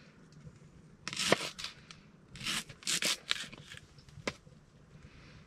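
Knife cutting through a leek on a bamboo chopping board: a few short crisp slicing rasps, then a single sharp tap of the blade on the board late on.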